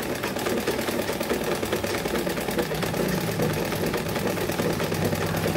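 Janome 680 sewing machine stitching a buttonhole while turned by hand at the handwheel, with no motor: a rapid, even clatter of needle and feed strokes. A steady low hum comes in about halfway through.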